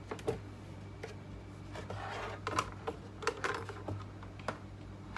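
Irregular light clicks and taps, with a short stretch of scraping about two seconds in, from handling a laptop motherboard and touching multimeter probes to it during voltage checks, over a steady low electrical hum.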